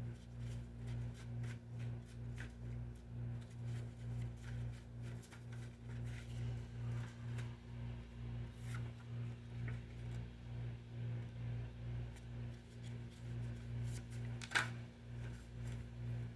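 A low hum pulsing evenly about twice a second, with scattered light clicks and one sharp click near the end.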